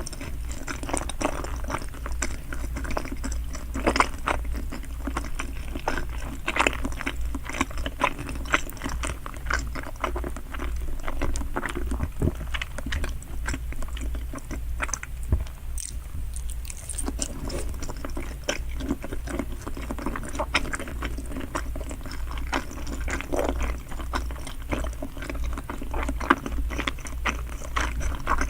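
Close-miked chewing of salmon sushi: a steady run of wet, irregular mouth clicks and smacks, with a brief pause about halfway through.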